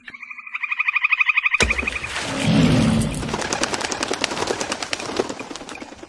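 A fast, evenly pulsing animal trill for about a second and a half. It cuts off abruptly into a loud rushing noise full of rapid crackles.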